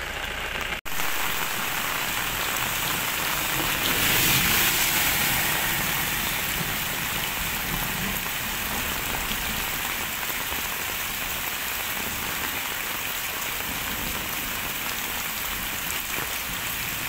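Heavy rain falling on a paved road: a dense, steady hiss that swells louder around four to five seconds in.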